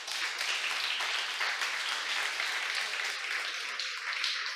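Congregation applauding, a steady clatter of many hands clapping.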